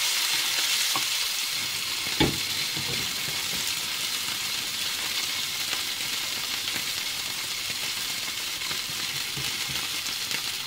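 Salmon fillet sizzling steadily in hot olive oil in a frying pan, just turned crispy skin side up. A single knock about two seconds in.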